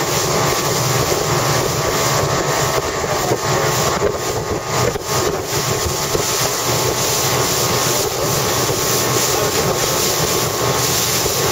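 Motorboat running at speed: a steady engine drone mixed with rushing water from the wake and wind buffeting the microphone.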